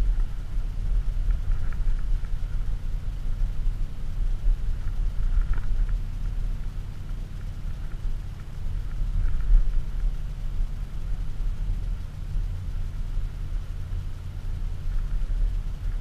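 Inside the cabin of an Audi SQ7 4.0 TDI, its twin-turbo V8 diesel giving a steady low rumble mixed with tyre and road noise while driving at town speeds.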